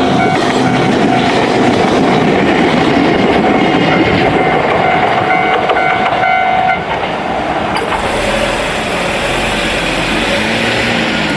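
Japanese level-crossing alarm ringing its standard electronic bell while a Joshin Electric Railway train passes over the crossing, wheels clattering on the rails. The bell stops about seven seconds in, and the train's running sound carries on more quietly.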